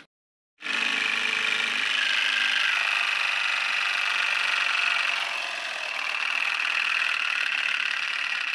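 Small homemade syringe-piston engine model running: a small motor with a tin-can flywheel spinning and the syringe linkage working, a steady mechanical whir that starts abruptly about half a second in.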